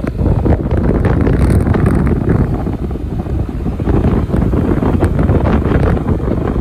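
Heavy wind buffeting on the microphone, a loud low rumble and rush, of the kind heard while riding along a road.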